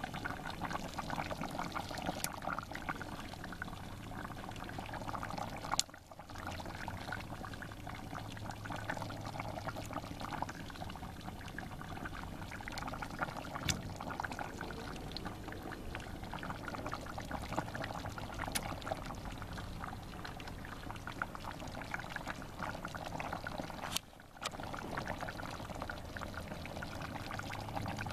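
Oxtail stew simmering in a cast-iron potjie over a wood fire: a steady bubbling hiss with a few sharp clicks. The sound breaks off briefly twice.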